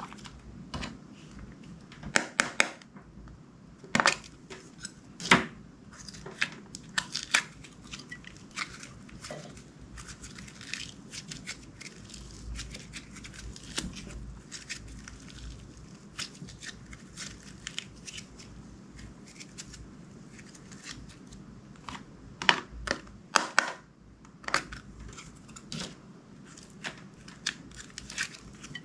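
Clear slime being mixed, a steady run of sharp crackling clicks and pops, with a few louder clicks a couple of seconds in and again about three-quarters of the way through.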